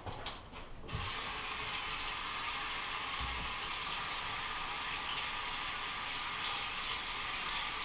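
A few faint knocks, then a steady rushing hiss starts suddenly about a second in and runs on evenly.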